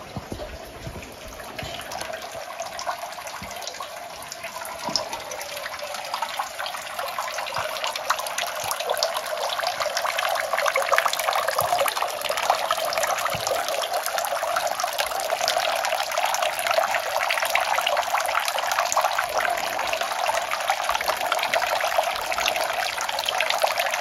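Running water splashing steadily, growing gradually louder.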